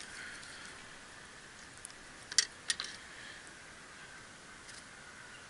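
Quiet handling sounds of a landing net and a freshly caught roach: two or three sharp clicks close together about two and a half seconds in, over a faint steady hiss.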